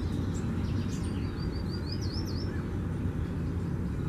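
Golden-crowned warbler singing: a quick run of short, evenly repeated rising notes that ends a little past two seconds in with a couple of louder swooping notes. A steady low rumble runs underneath.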